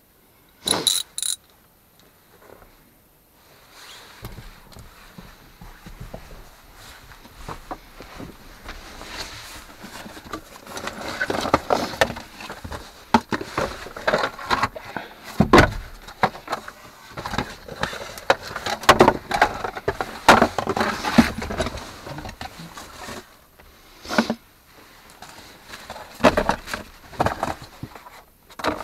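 Irregular knocking, clattering and rustling as someone moves about inside a Jeep's cabin and handles gear, with two sharp clicks about a second in and the busiest handling in the middle.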